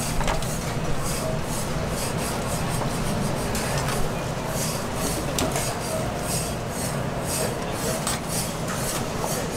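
A utensil scraping a cooking surface in repeated strokes, irregular at first, then settling into about three strokes a second from about halfway in, over a steady low hum.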